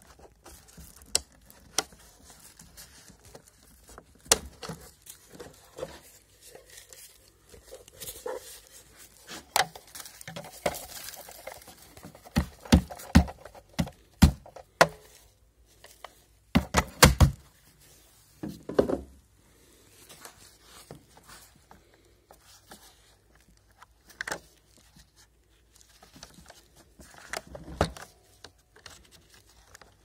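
Hands handling an iRobot Roomba e5 robot vacuum: scattered clicks and knocks of its plastic parts, with a run of loud knocks in the middle while its dust bin is emptied of confetti and paper scraps into a plastic bin bag.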